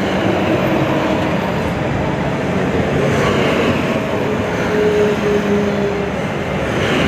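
Ten-wheel Ashok Leyland lorry's diesel engine running, heard from inside the cab as the truck moves slowly. There is a steady rumble of engine and cab noise, with faint engine tones that shift a little in pitch.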